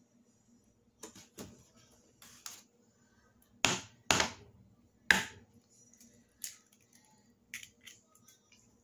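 Metal fork and hands knocking against a plastic food container: a scattered series of sharp taps and clicks, with three louder knocks in the middle.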